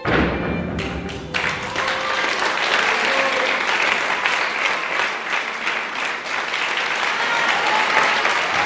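Audience applauding steadily, breaking out loudly as the music stops in the first second or so.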